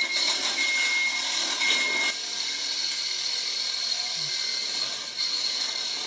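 Handheld power tool working on sheet-metal ductwork, running in short bursts with a high whine during the first two seconds, then steadier, quieter work-site noise.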